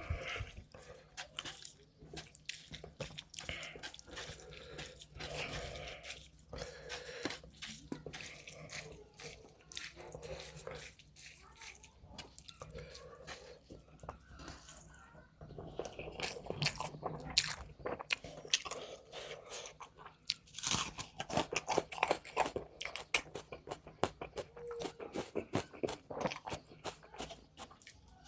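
Close-miked eating: a person biting and chewing crunchy food, with wet mouth sounds, the crunching growing dense and rapid in the last third.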